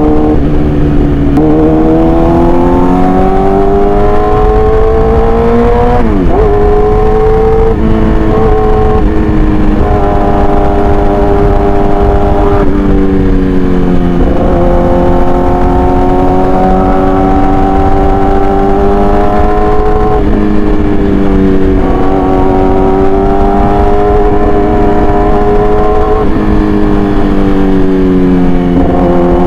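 Yamaha R6 inline-four engine through an SC-Project aftermarket exhaust, running loud and steady under way. Its pitch climbs slowly, then dips sharply and recovers four times, about 6, 14, 20 and 26 seconds in.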